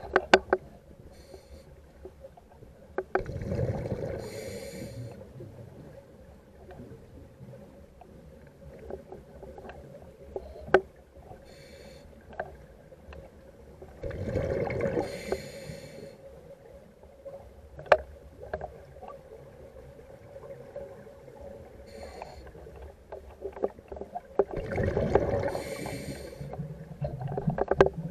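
Ambient sound-art soundscape: a steady hum, slow swells of rushing noise about every ten seconds, and a few sharp clicks in between.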